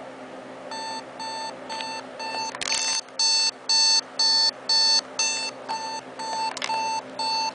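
Westclox model 49809 digital alarm clock's alarm going off: short, even electronic beeps start about a second in, about two a second. The beeps are louder for a couple of seconds in the middle, and two sharp clicks fall among them.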